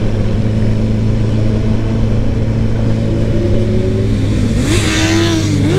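Motorcycle engines running at idle in a steady low drone. About three and a half seconds in, one engine is revved, its pitch dipping and rising twice near the end.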